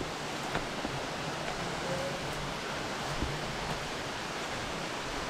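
Waterfall rushing: a steady, even wash of falling water, unchanging throughout.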